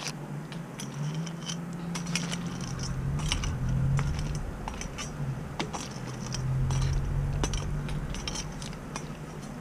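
A long perforated metal skimmer spoon clinks and scrapes against a large metal stock pot while stirring crawfish in the water, giving many short, sharp metallic clicks. A low rumble comes and goes underneath.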